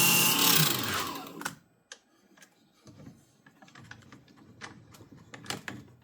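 Small wood lathe's motor running, then switched off about half a second in and spinning down to a stop in about a second with a falling pitch. After that come scattered light clicks and taps.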